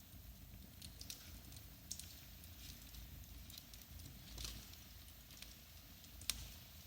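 Wood fire in a fireplace crackling softly, with scattered small pops and one sharper crack about six seconds in.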